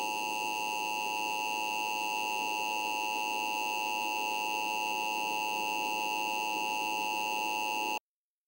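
Emergency Alert System two-tone attention signal, a steady electronic dual tone that cuts off abruptly about eight seconds in.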